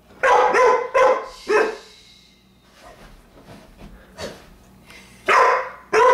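Dog barking in play at its ball toy: several quick barks in the first two seconds, a pause, then more barks near the end.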